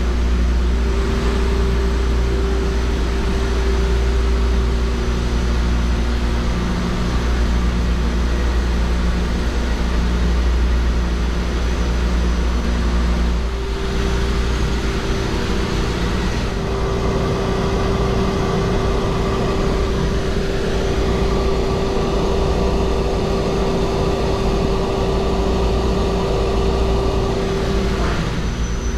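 Loud, steady machinery hum in a ship's engine room: a deep drone with held tones above it. About halfway through, the deep drone weakens and higher steady tones come in.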